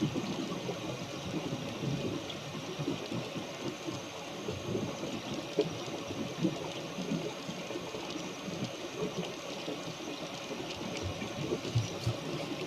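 Water rushing and splashing irregularly along a small sailboat's hull as it moves, a steady hiss with many short uneven splashes.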